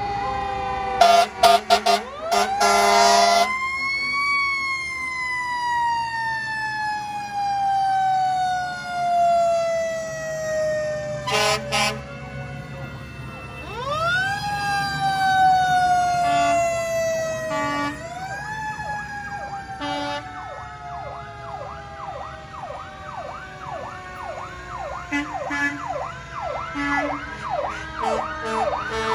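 Parading fire engines sounding their sirens and air horns. A siren wails up and then slowly falls away, twice. Loud horn blasts come about a second in and again near the middle. From a little past halfway, a faster siren sweeps up and down several times a second.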